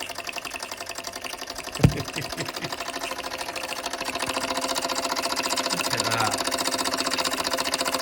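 Mamod SE1 toy steam engine's single oscillating cylinder running under steam, a fast, even chuffing and clatter that grows louder about halfway through. A single sharp knock comes just before two seconds in.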